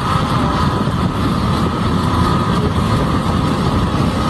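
A heavy engine running steadily, a dubbed-in vehicle sound effect for a toy tractor, with a deep rumble.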